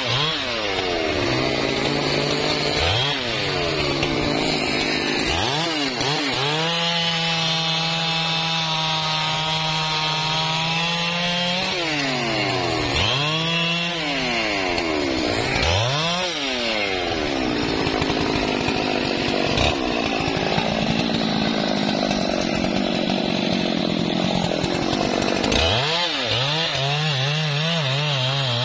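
Husqvarna 3120 XP chainsaw, a large two-stroke saw, cutting through a thick trembesi (rain tree) log at full throttle. The engine note dips and climbs back several times as the throttle is eased and reopened, and it holds one steady pitch for a few seconds in the middle.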